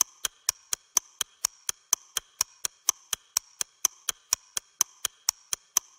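Even, rapid ticking, about four ticks a second, each tick a sharp click with a short bright ring, like a clock or timer ticking sound effect.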